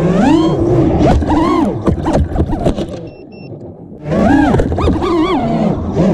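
Brushless motors and 5-inch propellers of an FPV racing quadcopter, their whine sweeping up and down as the throttle is worked. The motors ease off about two and a half seconds in, then rev hard again about four seconds in; two short high beeps sound during the lull.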